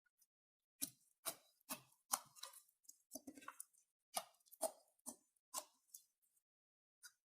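A run of short, sharp clicks and taps, roughly two a second, beginning about a second in and thinning out after about six seconds, typical of hands handling small craft materials.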